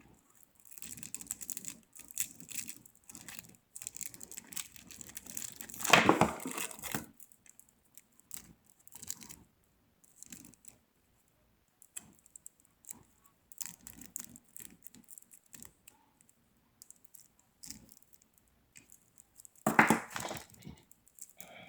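Plastic wrapping being crinkled and torn off a camcorder battery: irregular rustling, with two louder bursts about six seconds in and near the end.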